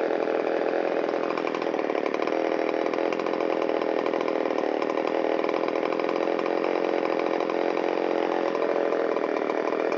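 Shindaiwa 360 two-stroke chainsaw idling steadily, with no surge or drop in speed, while its crankshaft seals are checked for air leaks.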